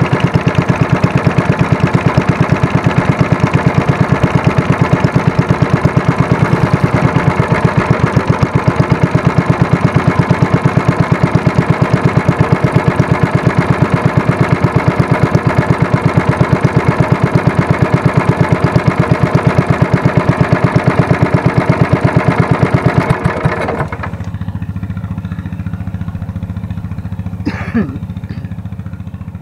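Small wooden boat's engine running steadily under way with a rapid, even pulsing beat. About 24 seconds in it is throttled back to a quieter, low idle. A brief sharp sound comes near the end.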